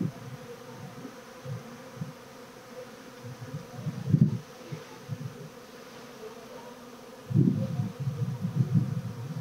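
Honey bees buzzing around an open hive, a steady hum. Low rumbling bursts come about four seconds in and again through the last two seconds.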